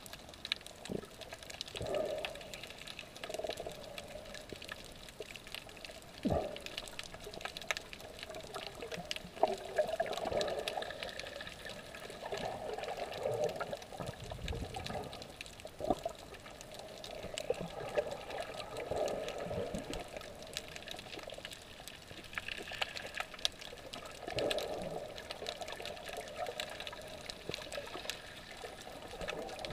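Water sloshing and bubbling, heard muffled with the microphone underwater, coming in irregular surges every few seconds.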